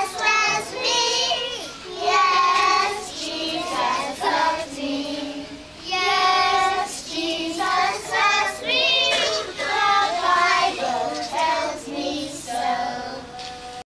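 A small group of young children singing a song together, phrase after phrase.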